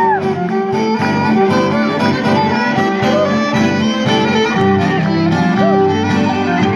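Live dance music from a small folk band: a violin plays an ornamented melody over a steady, rhythmic accompaniment.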